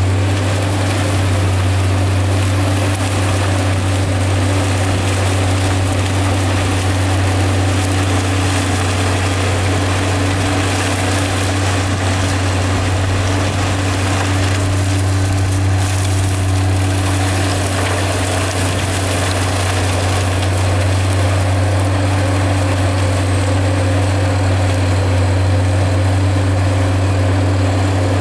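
Prinoth AHWI Raptor 800 640-horsepower tracked forestry mulcher working: its engine and spinning mulching rotor make a loud, steady drone at constant speed as the rotor grinds through soil and woody debris.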